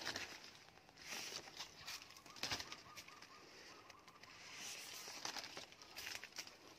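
Mango leaves rustling as a hand pushes through and handles the branches, in several soft swishes a second or two apart.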